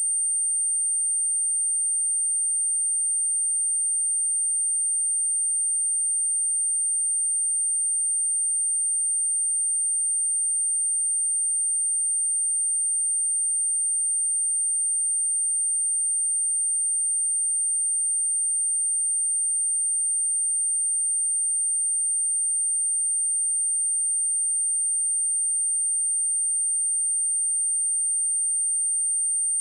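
Steady synthetic 8816 Hz sine-wave test tone: one high, pure, unbroken whistle at constant pitch and level, of the kind played to test speakers or to shake water and dust out of them.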